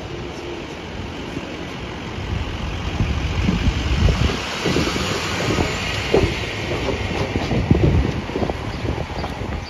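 City street traffic noise around an articulated New Flyer XD60 bus running at the curb, with a steady low rumble and a hiss that swells in the middle. Irregular low thumps from wind on the microphone run through it.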